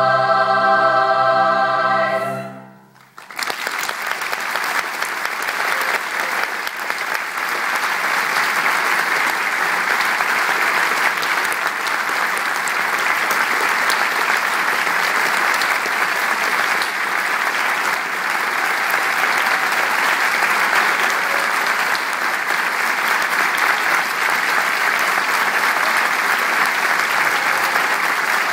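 A treble choir holds its final chord, cut off about two seconds in; after a brief hush an audience breaks into steady applause that lasts to the end.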